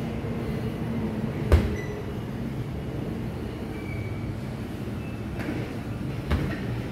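Two strikes landing on a heavy punching bag, a loud thud about a second and a half in and a softer one near the end, over a steady low background rumble.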